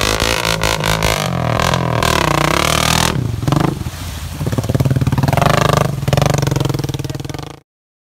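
Honda Rancher 420 ATV's single-cylinder engine revving hard as it wades through deep water, its pitch rising and falling with the throttle. The revs drop about three seconds in, then climb again as the front end lifts into a wheelie. The sound cuts off abruptly near the end.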